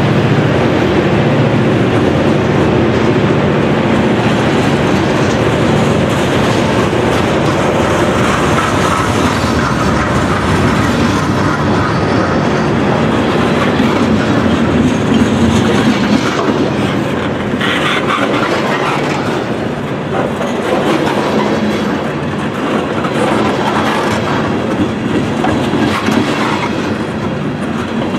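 Freight train cars rolling past close by, boxcars and then tank cars, with a steady rolling rumble. From about two-thirds of the way in, the wheels click more distinctly over the rail joints.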